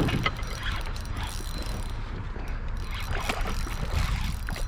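Noise aboard a canoe: a steady low rumble with scattered light clicks and knocks.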